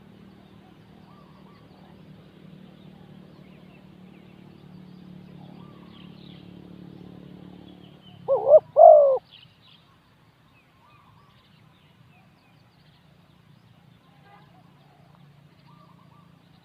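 Spotted dove cooing: one short phrase of three notes, two quick ones and a longer third, about eight seconds in. Faint chirps of small birds are scattered around it.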